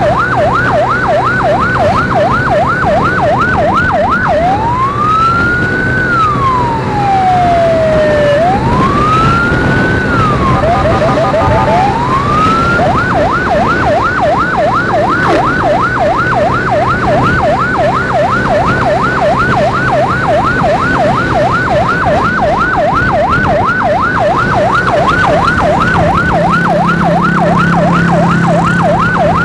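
Electronic emergency siren in a fast yelp, rapidly warbling up and down in pitch. About four seconds in it switches to a slow wail of two long rising and falling sweeps, and it goes back to the fast yelp about thirteen seconds in. The hum of a motorcycle engine runs underneath.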